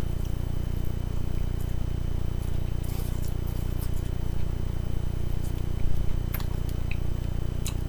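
Chewing a mouthful of spinach salad, with a metal fork giving scattered soft clicks and scrapes in a plastic container, over a steady low hum.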